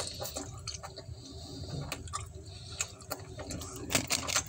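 A person chewing pizza close to the microphone: irregular wet mouth clicks and smacks, coming faster near the end.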